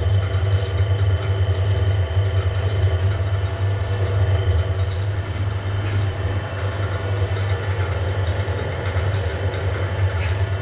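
Sigma Silver 120 spiral dough mixer running empty at high speed, its motors turning the bowl and spiral hook with a steady low hum.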